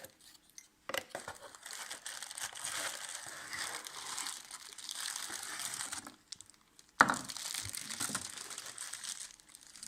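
Lava lamp packaging crinkling and rustling as it is handled, with one sharp knock about seven seconds in, the loudest moment.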